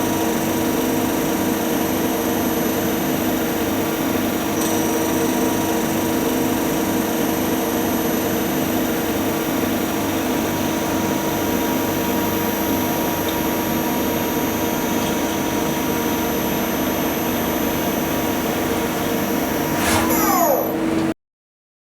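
A high-speed power tool running steadily, then winding down with falling pitch near the end before the sound cuts off.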